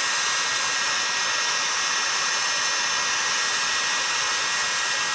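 Heat gun blowing steadily: a constant hiss with a faint high whine. It is heating a chainsaw crankcase half toward about 230 degrees so the crankshaft bearing can be pushed in.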